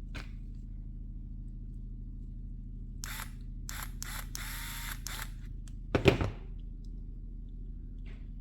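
Handling noises over a steady low hum: a click, a few seconds of rustling or scraping, then one loud knock, and a faint click near the end.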